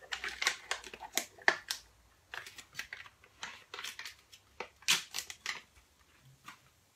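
Irregular crisp clicks and crinkles of plastic food packaging being handled and opened. They stop about five and a half seconds in.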